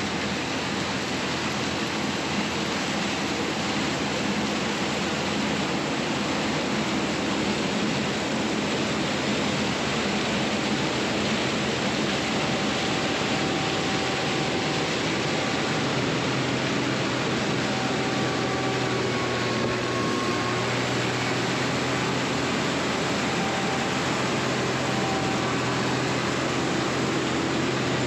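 Heavy diesel farm machinery running steadily under harvest work: a constant loud rush of machine noise over a low engine hum. About halfway through, a deeper steady hum grows stronger.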